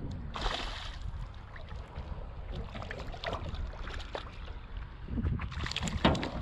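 A hooked fish splashing and thrashing at the water's surface as it is reeled in, with a loud splash about half a second in and another near the end. Steady wind noise on the microphone underneath.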